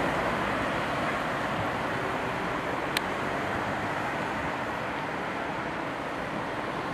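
Steady road traffic noise, with a passing vehicle fading away at first. A single sharp click about three seconds in.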